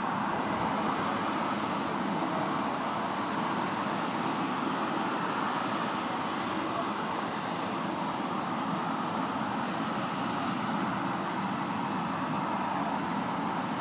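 Steady, even background noise like distant road traffic, with no distinct engine note, rotor beat or sudden sound.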